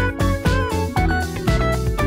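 Background music: a guitar-led tune over a steady beat, the guitar notes bending in pitch.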